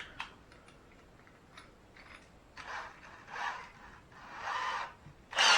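A drill bit being fitted into a drill's chuck by hand: a few light clicks, then several short rubbing, scraping turns of the chuck, with a louder, sharper scrape near the end as it is tightened.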